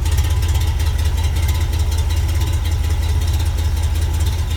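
1968 Jeep CJ5's Dauntless odd-fire V6 engine idling steadily.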